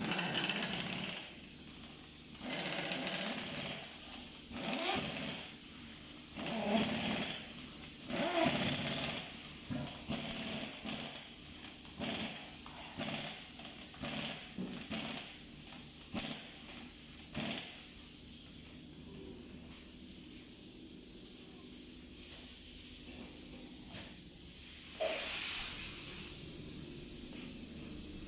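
Pneumatic impact wrench running in short, irregular bursts, over a steady high hiss. The bursts stop about two thirds of the way through, and one more loud burst comes near the end.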